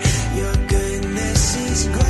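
Background music: a worship pop song with a full instrumental backing.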